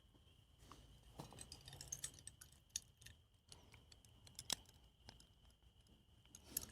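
Near silence with faint, irregular clicks and ticks scattered through it, a couple of them a little louder.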